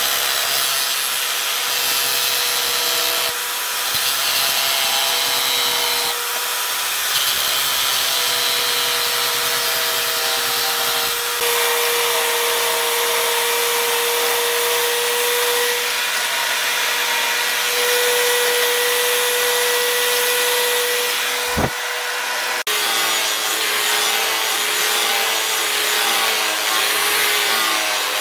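A motor-driven grinder or sander abrading a knife. It makes a steady rasping hiss over a constant motor whine, and the tone and texture shift abruptly several times.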